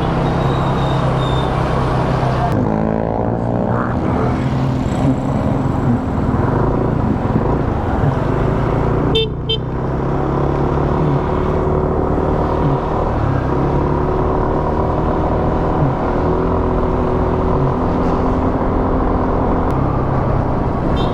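Small motor scooter engine running on the road, its pitch rising and falling with the throttle over steady road noise. About nine seconds in there is a short horn toot.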